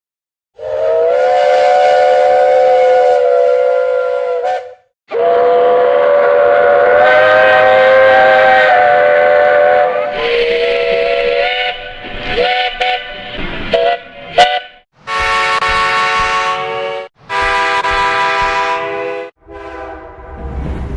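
Steam locomotive chime whistle sounding a chord of several notes: two long blasts, a run of short toots, then two more long blasts. Near the end a whistle chord plays over a low rumble.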